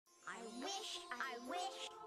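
Cartoon magic sound effect over music: pitched tones that glide up and down, with a high shimmering sparkle.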